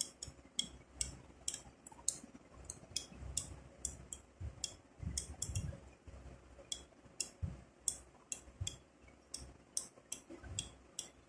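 No-frost refrigerator defrost timer being turned slowly by hand, its gear train clicking in a run of small ticks, about two or three a second, as the cam is advanced toward the defrost-heater position.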